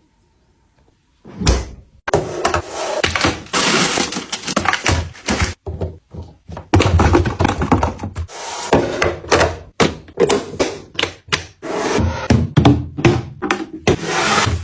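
Household items being handled and set down: a busy run of knocks, thunks and rustling that starts about a second in.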